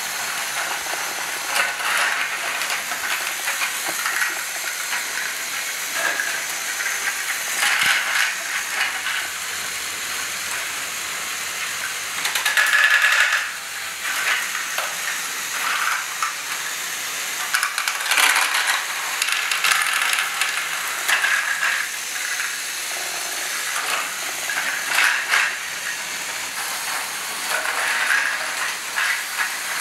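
LEGO Great Ball Contraption modules and a motorised Akiyuki Type 2 train running together. Small electric motors and plastic gears whir steadily, with repeated clatter and clicking of plastic balls and ratcheting mechanisms, loudest a little under halfway through.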